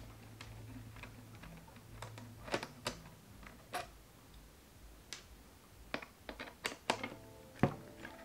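Irregular small clicks and ticks of a hand driver and tiny screws as the bolts are worked out of the strap mount on DJI FPV goggles, a few sharper clicks among quieter handling taps.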